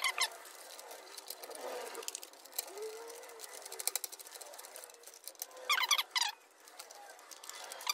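Soft silicone tubing squeaking as it is pulled and pushed through a port in a plastic RC boat hull, with light clicks and rustles of handling. Short squeaks come at the start, twice about six seconds in, and again at the very end.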